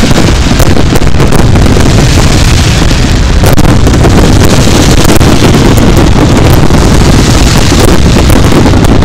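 Fireworks finale: a dense, unbroken barrage of aerial shells bursting and crackling. The sound is loud enough to overload the camera microphone into a constant distorted rumble.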